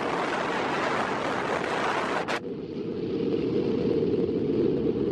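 Wind buffeting the microphone and water rushing past a moving boat: a loud, steady roar. A little over two seconds in, it turns abruptly muffled, leaving only a low rumble.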